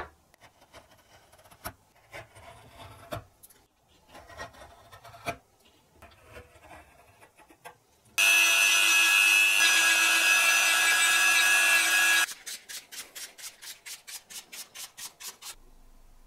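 A hand chisel scrapes and cuts into a wooden block in short, irregular strokes. A power tool then runs loudly for about four seconds, followed by quick back-and-forth filing strokes on the wood, about six a second.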